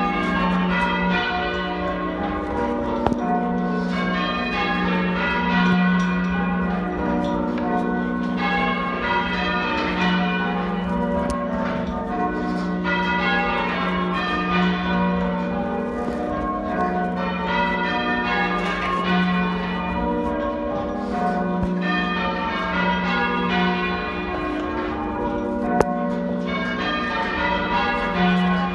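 A ring of church bells being rung in changes, half-muffled: each bell's clear open stroke alternates with a dull muffled stroke in a steady, unbroken sequence of strikes.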